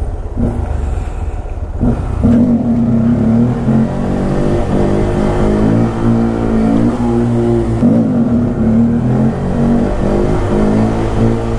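Honda Grom's small single-cylinder engine under way, its note rising and falling several times as the throttle is opened and eased off.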